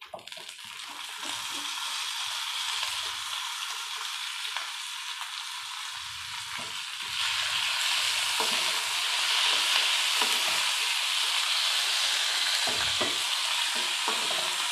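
Freshly washed lemon leaves sizzling in hot oil in a pan with urad dal, garlic and dried red chillies, stirred with a wooden spatula that scrapes and knocks the pan now and then. The sizzle is steady and grows louder about halfway through.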